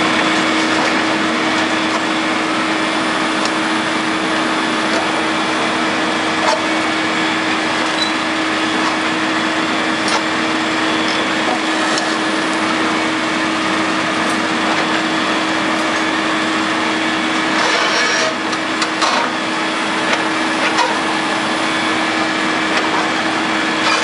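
Diesel engine of a Caterpillar 330C hydraulic excavator running steadily with a constant hum while its demolition jaw crunches into a concrete bridge deck, with scattered sharp cracks of breaking concrete.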